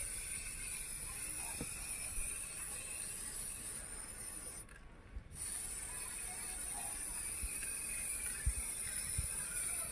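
Aerosol can of black acrylic lacquer spray paint hissing steadily as it sprays, with a short break about five seconds in. A couple of soft knocks near the end.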